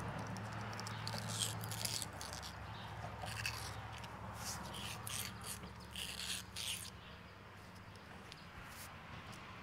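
Short scrapes and clicks of hands working on a small round metal part from a hydraulic cylinder, over a steady low hum. The handling sounds thin out after about seven seconds.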